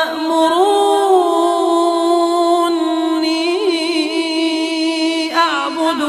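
A male Quran reciter chanting in melodic tajweed style, drawing out long vowels in sustained notes with ornamented turns of pitch.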